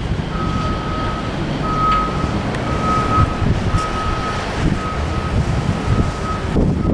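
A vehicle's reversing alarm beeping in a steady single tone, about one beep a second, over low wind rumble.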